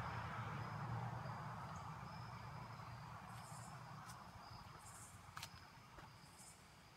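A passing vehicle fading away into the distance, leaving insects chirping steadily in short repeated pulses. Two sharp clicks near the end.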